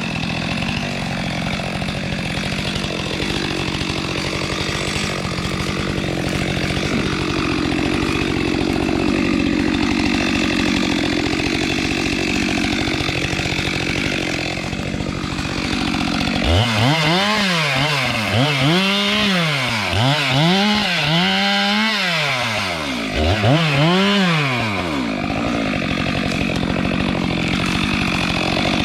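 Two-stroke chainsaw running steadily at high throttle while cutting through a tree. About two-thirds of the way in, its engine note swings up and down about six times over several seconds, then settles back to steady running.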